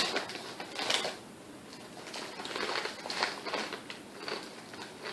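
Kettle-cooked potato chip being bitten and chewed: a string of crisp, irregular crunches, the loudest at the start and about a second in, then softer chewing crunches.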